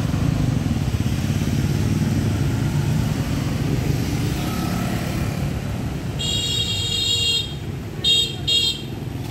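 Motorbikes running along a busy street, a steady engine rumble. Near the end a high horn sounds once for about a second, then twice briefly.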